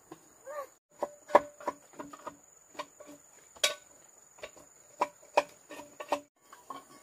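An irregular series of sharp knocks and clatter, about fifteen, some with a short ringing, the loudest about a second and a half in and again near four seconds. A steady high-pitched hum runs under them.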